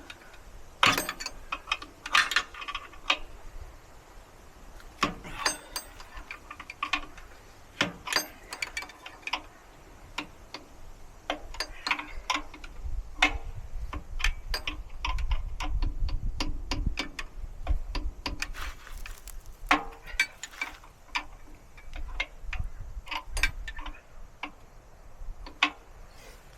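Hand wrench turning the 5/8 in bolt of a mini skid steer's track tensioner: a run of irregular metallic clicks and clinks, one small turn after another. A low rumble comes in around the middle.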